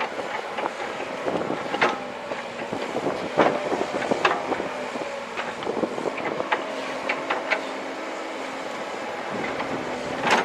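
Komatsu PC130 excavator's diesel engine running under load, with a hydraulic whine for a couple of seconds past the middle. Scattered clanks and scrapes as the bucket works the rocky riverbed.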